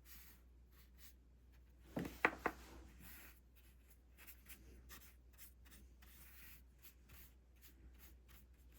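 Faint, soft scratching of a watercolour brush stroking across textured watercolour paper, in many short strokes, with a few louder taps about two seconds in.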